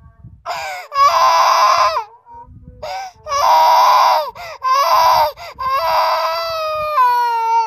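Toddler crying hard: loud, high wails of about a second each, broken by short gasps for breath, with a longer, slightly falling wail near the end.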